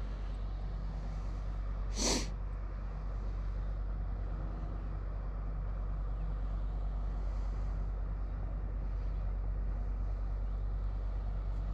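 The engine of a big passing river boat, a steady low drone that grows slightly louder. About two seconds in, one short sniff-like noise sounds close by.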